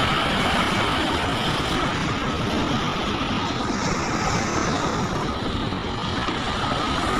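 Heavy earthmoving machinery running steadily, a continuous engine noise with a faint steady whine above it.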